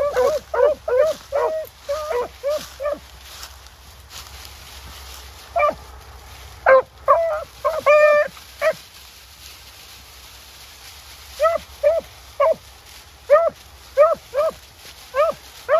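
Rabbit hounds baying on a track in short, repeated barks: a quick run of them at first, scattered barks and one longer, higher howl about eight seconds in, then steady baying about two a second near the end.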